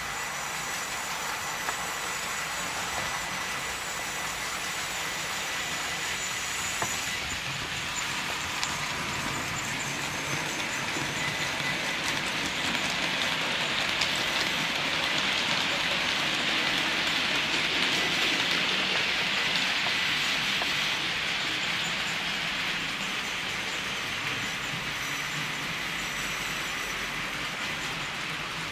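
Model Class 56 diesel locomotive and its wagons running on model railway track: a steady whirring rolling noise that grows louder around the middle as the train passes close, then eases off.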